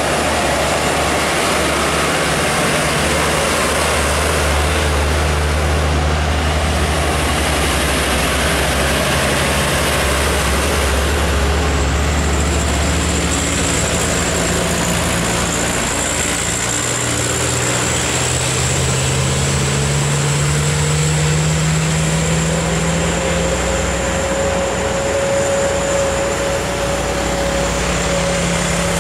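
A vehicle running steadily: a constant rush of noise with low engine tones that slowly rise and fall, and a thin high whine that comes in about twelve seconds in.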